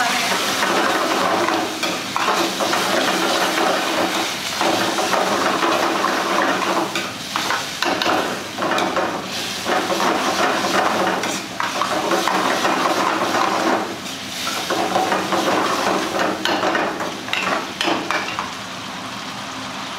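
A steel ladle scraping and clanking against a kadhai wok as chicken curry is stirred and fried over a gas flame, with sizzling throughout. A steady low hum runs underneath.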